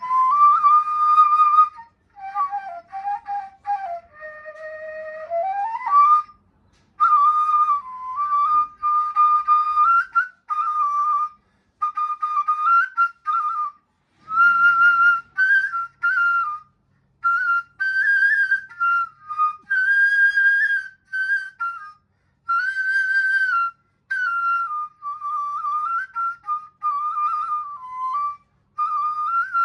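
Solo ney, an end-blown reed flute pitched in Nawa, playing a melody in maqam Ajam, recorded dry without added effects to show how accurately its notes are tuned. It plays short phrases with brief breath gaps, and a lower passage about four to six seconds in glides back up to the main register.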